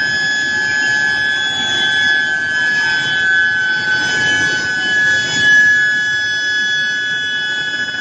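Steel billet induction heating furnace in operation, its coils giving a steady high-pitched whine with fainter higher overtones, over rough machinery noise from the line.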